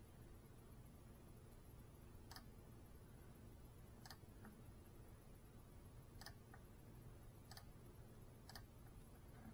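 Near silence: faint steady hum and hiss, broken by five faint, sharp clicks at uneven intervals.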